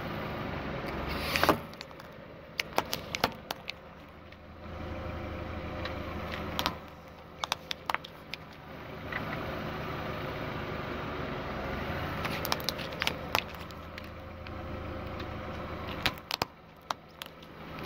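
Car tyre pressing down on two plastic toy Formula 1 cars, with clusters of sharp cracks and snaps as the plastic bodies give way, over a car engine idling.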